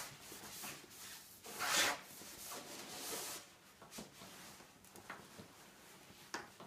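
Cloth drape rustling and swishing as it is bunched and slid along a plastic pipe rail, loudest about two seconds in. A few short light knocks from the pipe frame follow near the end.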